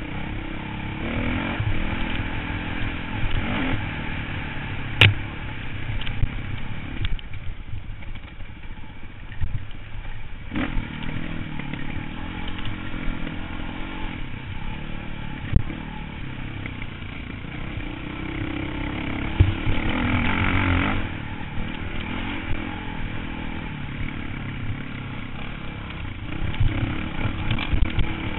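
Dirt bike engine heard on board while riding a rough trail, revving up and easing off as the throttle changes, with a few sharp knocks from the bumps.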